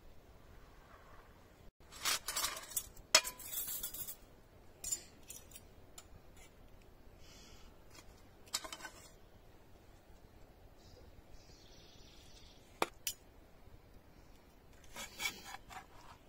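Metal serving spoon and tongs scraping and clinking against a large metal griddle pan and metal plates as fried chicken and vegetables are served, in a few short bursts with quiet stretches between and one sharp clink near the end.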